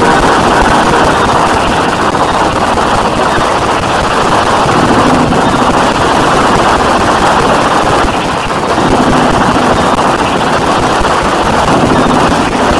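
Harsh noise music: a loud, unbroken wall of distorted noise with a rapid crackling, sputtering texture, dipping briefly about eight seconds in.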